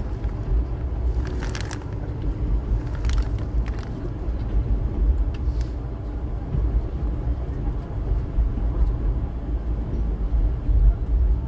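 Passenger train running on the rails, a steady low rumble with a few sharp clicks in the first four seconds.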